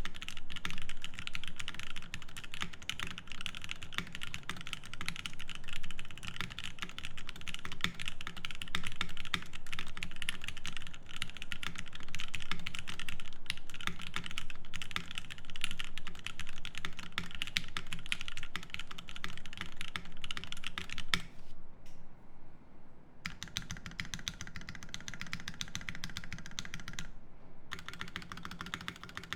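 Fast, continuous typing on a Savage65 mechanical keyboard with lubed Zeal Tealio V2 67g linear switches, an FR4 plate and GMK Coral keycaps. The typing stops for about two seconds about two-thirds of the way in, then resumes, with another brief pause near the end.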